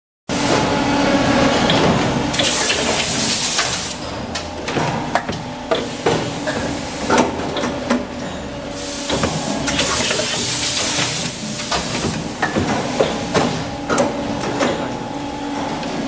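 Hydraulic moulding machine running with a steady hum. Long bursts of hissing come about two and a half seconds in and again around nine seconds in, with scattered metallic clanks and clicks throughout.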